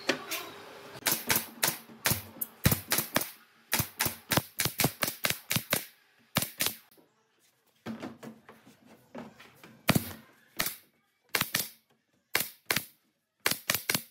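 Pneumatic brad nailer firing nails through pine pallet boards into a cabinet top. The shots come as sharp clacks, some in quick runs of several a second and some singly, with short pauses between.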